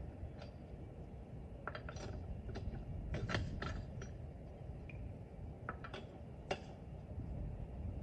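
Metal tools and lug nuts clinking during a car's tyre change: a scattered run of sharp clinks and clicks, some ringing briefly, over a low steady rumble.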